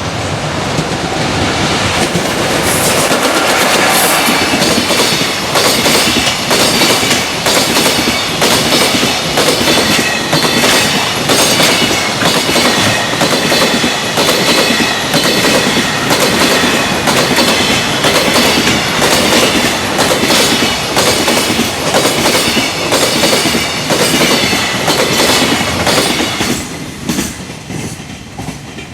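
Freight train passing close by at speed, its wagons' wheels clattering rhythmically over the rail joints. The clatter builds in the first couple of seconds and fades away near the end as the train goes by.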